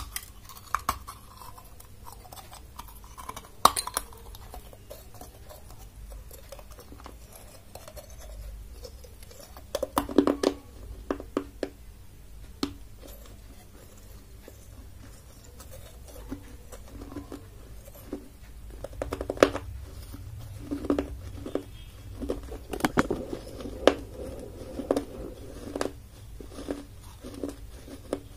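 Dry, half-baked clay diya being bitten and crunched between the teeth: sharp cracking crunches, a few scattered at first, then a cluster about ten seconds in and a denser run of crunching and chewing over the last third.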